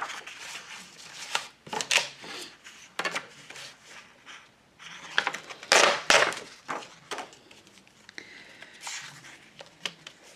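Paper rustling and crinkling as sheets are handled and shifted on a tabletop, in a string of short, uneven bursts, the loudest about six seconds in.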